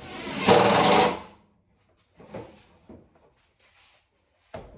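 Cordless drill running in one loud burst of about a second, driving a self-tapping screw to hold the fiberglass fender flare in place. A few faint knocks follow, and a sharp click near the end.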